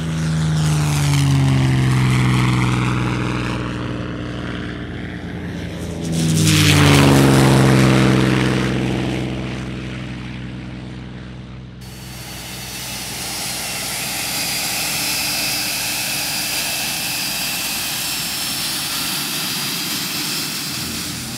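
Piston-engined propeller aircraft running at high power as it passes, its drone falling in pitch, then a second, louder pass of propeller engine noise about six seconds in that also falls away. From about twelve seconds in, a jet engine's steady high whine.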